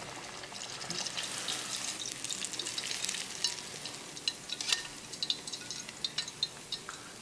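Gram-flour-battered salmon pieces deep frying in hot vegetable oil in an electric deep fryer: a steady sizzle with many sharp crackles and pops.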